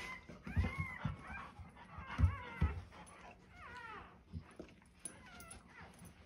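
Newborn German Shorthaired Pointer puppies whining in repeated high, rising-and-falling squeals. Dull thumps and blanket rustling come from the mother digging and nosing in her bedding while nesting in labour, with the loudest thumps about two seconds in.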